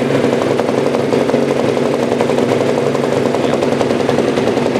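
Yamaha YFZ450R's single-cylinder four-stroke engine idling steadily, just after being started.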